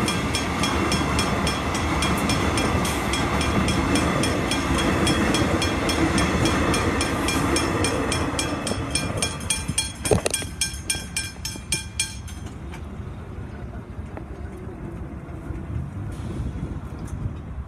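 Level-crossing bells ringing in rapid, even strikes over the rumble of a passing X'Trapolis electric suburban train. The train's rumble fades, a sharp knock comes about ten seconds in, and the bells stop about twelve seconds in, leaving traffic noise.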